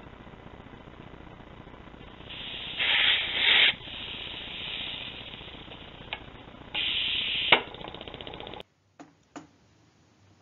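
Herkimer "OK" CO2 model motor hissing with escaping CO2 gas: the motor has a leaky tube-to-head joint. The hiss swells from about two seconds in and comes loudest in two stretches, with sharp clicks as the propeller is flicked by hand, and it cuts off suddenly near the end.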